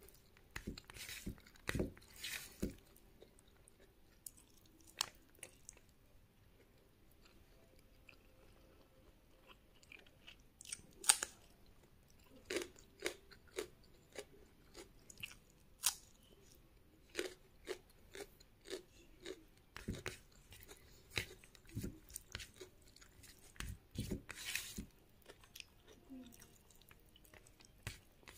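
Close-up chewing of rice and vegetables, with irregular wet clicks and crisp crunching bites into a raw green chilli. A sharp crunch comes about a third of the way in, followed by a run of crunches about twice a second.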